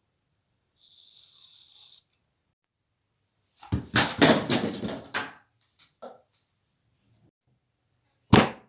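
A faint hiss, then a quick run of several sharp bangs or knocks, a couple of small clicks, and one more bang near the end.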